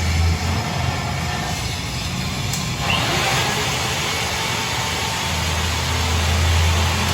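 A motor running steadily with a low hum; a hiss comes in louder about three seconds in.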